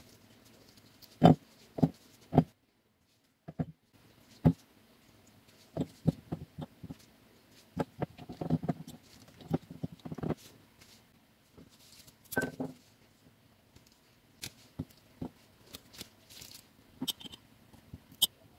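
Whole greengages dropped and packed into a glass jar, knocking against the glass and each other in irregular single knocks, then denser clattering as the jar fills. Near the end come a few sharper clinks of a knife against the glass.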